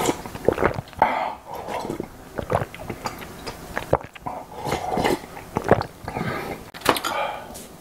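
A man drinking from a bowl, close to the microphone: a run of irregular slurps and gulps with wet mouth clicks.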